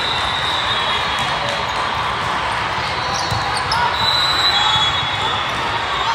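Steady din of a big volleyball tournament hall during a rally: many voices and ball hits from the surrounding courts, with a few brief high squeals over the top.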